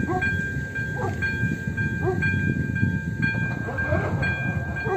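AŽD electronic level-crossing bell (Elektronický 02) ringing a steady, repeating electronic tone, warning that the crossing is closing for a train as the barriers lower. A low rumble runs underneath, with a few short falling chirps.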